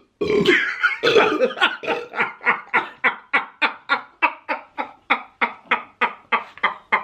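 A person laughing hard: a long, unbroken run of short, rapid 'ha' pulses, about five a second, that slowly gets quieter.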